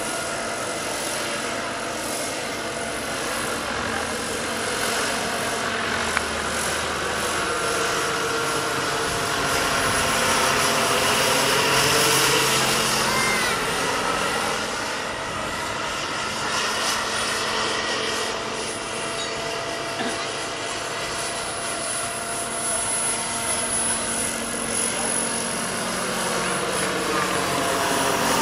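Giant-scale RC model SA-319 Alouette III helicopter in flight, its model turbine engine giving a steady high whine under the rotor noise. The sound swells and fades as it moves about, growing louder near the end as it comes overhead.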